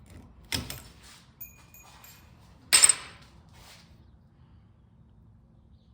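Metal tools and parts knocking and clanking: a knock about half a second in, a lighter one after it with a thin ring, then one loud metallic clank just before three seconds in that rings briefly.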